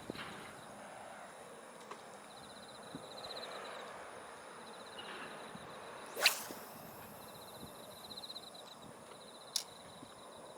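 A single sharp swish of a spinning rod being cast for a light jig, about six seconds in, with a short click near the end. Faint pulsed chirping of insects repeats in the background.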